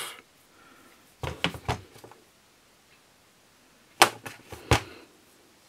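Light clicks and knocks of metal parts and tools handled on a workbench: a quick cluster of taps about a second in, then two sharper knocks near four and five seconds.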